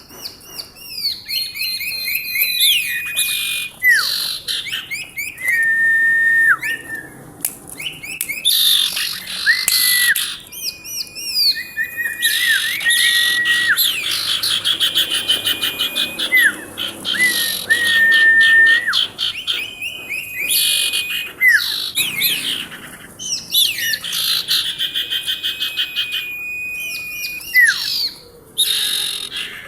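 Female iora (cipoh 'sirtu') calling continuously: clear held whistles, quick swooping chirps and fast rattling trills, repeated in bouts with short breaks.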